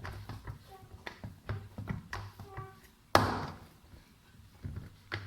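Sticky, oiled bun dough being kneaded by hand on a parat: a run of soft taps and squelches, then a loud thump a little over three seconds in and another knock near the end.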